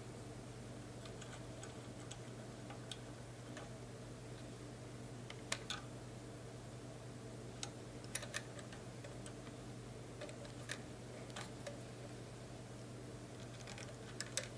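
Faint, irregular metallic clicks and taps of a screwdriver and nut driver working on a small Honda engine's parts, over a steady low hum.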